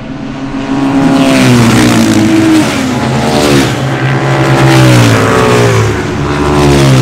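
Moto Guzzi Le Mans racer's V-twin engine running hard on track, loud, its pitch falling and rising again several times through gear changes.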